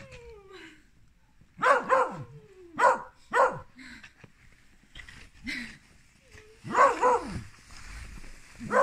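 A dog barking excitedly: about seven sharp barks, singly and in pairs, with a falling whine near the start.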